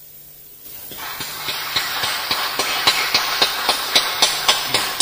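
Audience applauding, swelling up about a second in, with one person's claps standing out sharply at about four a second.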